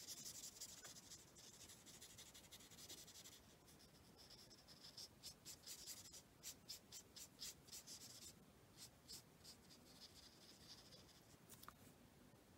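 Faint scratching of a Stampin' Blends alcohol marker tip colouring on white cardstock. First comes a steady run of strokes, then a stretch of quick short back-and-forth strokes, about three a second.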